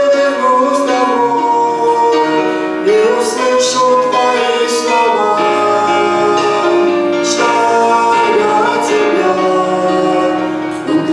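A Christian hymn sung with instrumental accompaniment; the singing moves in long held notes, with no break.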